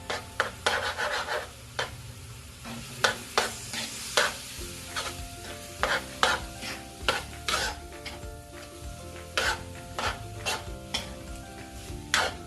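A cooking utensil stirring ground beef and liver spread in a frying pan, with irregular scrapes and knocks against the pan over a steady sizzle.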